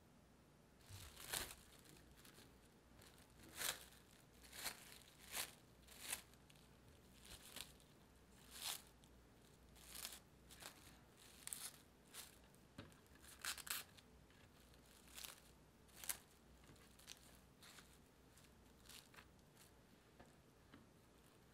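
Plastic cling wrap crinkling in short, irregular crackles as it is spread and pressed down over a tray of shaped bread dough.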